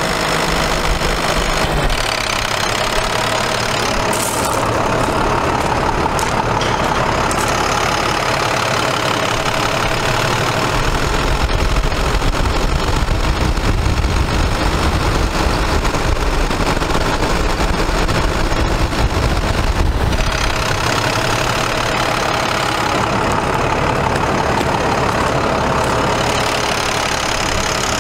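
International DT466 inline-six diesel engine idling steadily, heard close up at the open engine bay.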